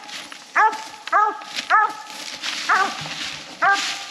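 Coonhounds barking treed: short, pitched chop barks repeated about every half second to a second. A rustle of brush sits under the barks in the middle.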